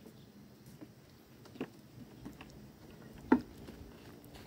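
Footsteps on a dirt and grass path: scattered soft steps with one sharper knock about three seconds in.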